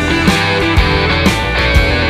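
Rock music with distorted electric guitar and a steady drum beat, about two hits a second.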